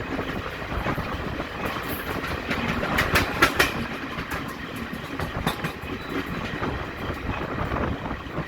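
Express passenger train running on the rails: a steady rumble with wheels clattering over the track, and a run of louder clacks about three seconds in.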